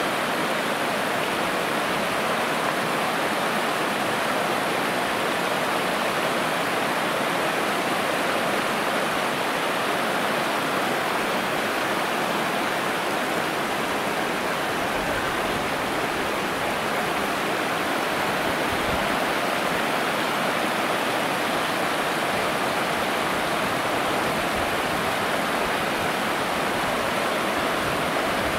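Rushing water: a steady, even rush with no change in level.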